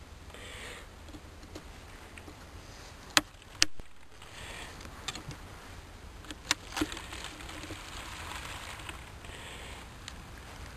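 Handling noises from a wooden top-bar hive being worked: soft rustling and scraping, with four sharp knocks or clicks, two close together about three seconds in and two more a few seconds later.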